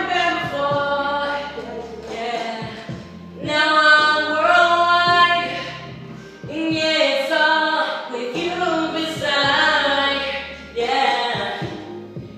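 A young man singing a pop melody in a high voice into a handheld microphone. He sings in four sustained phrases separated by short breaths.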